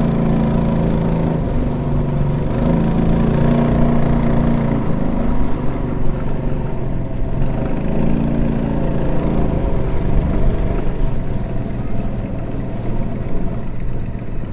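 Boat engine running steadily under way, with the hum of the hull moving through the water.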